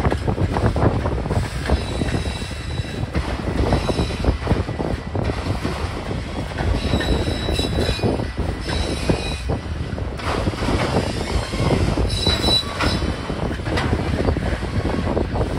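Freight train rolling past close by: a steady rumble of autorack cars' steel wheels clattering over the rail, with brief high-pitched wheel squeals several times.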